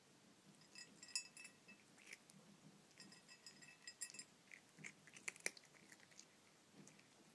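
A cat crunching Sheba dry kibble: quiet bursts of crisp crunching and clicking, irregular, loudest a little past the middle.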